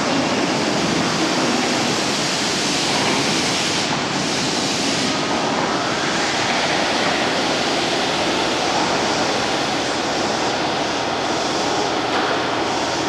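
Steady rushing noise of an underground station platform with an electric train standing at it, even throughout with no single event standing out.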